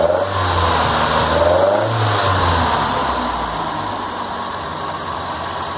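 Toyota 18R-G twin-cam four-cylinder engine of a 1981 Celica RA40 running, revved a little in the first two seconds or so and then settling back to a steady idle.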